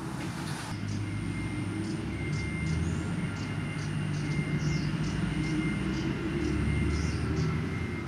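Low engine rumble of road traffic, rising and falling and loudest near the end, with a thin steady high whine and scattered faint high chirps above it.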